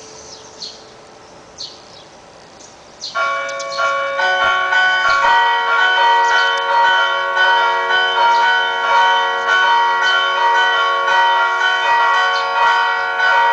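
Church bells: one ringing dies away, then about three seconds in several bells start ringing loudly together, struck over and over in a continuous peal.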